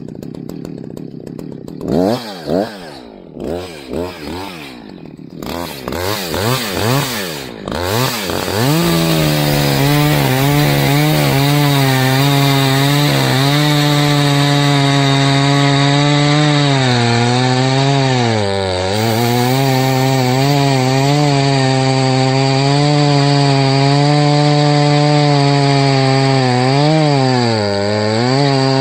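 Echo CS-620PW two-stroke chainsaw with a 24-inch bar, revved up and down in short blips for several seconds. From about nine seconds in it holds at full throttle, cutting into a fallen oak log, and the pitch dips briefly twice under load.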